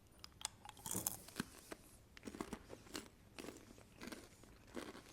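Someone chewing crunchy caramel-coated popcorn, a run of irregular crisp crunches and crackles close to the microphone.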